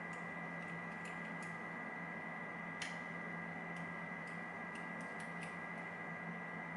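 Faint, irregular clicks of a lock pick and tension wrench working the pins of a pin-tumbler challenge lock, with one sharper click about three seconds in.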